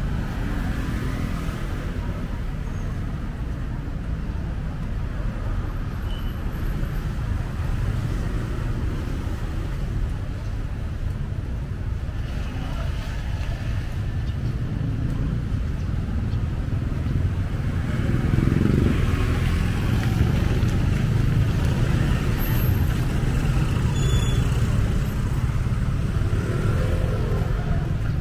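Steady road traffic noise from a busy city street, with vehicles passing, growing louder about two-thirds of the way through.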